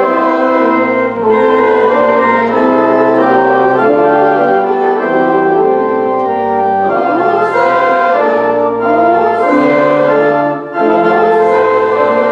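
An organ plays a slow hymn in held chords. About halfway through, singing voices join in.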